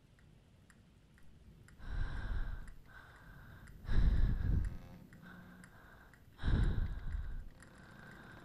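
Heavy, slow breathing: three loud breaths about two seconds apart, each with a deep rumble beneath it.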